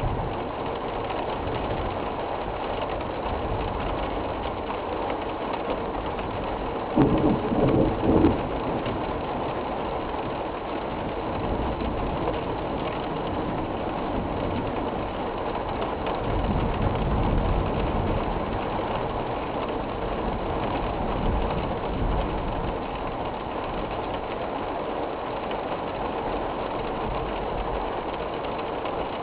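Heavy storm rain and wind making a steady rushing noise. There is a short louder burst about seven seconds in, and a low rumble through the middle.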